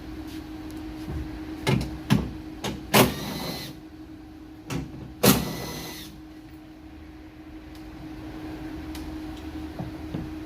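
Tool work on the 10 mm bolts holding a Hyundai Elantra trunk latch: a handful of short sharp sounds and two longer bursts, all in the first six seconds, over a steady low hum.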